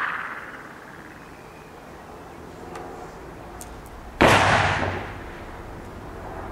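One shot from a Frommer 37M semi-automatic pistol about four seconds in: a sharp crack followed by about a second of echo. At the start, the echo of a previous shot is still dying away.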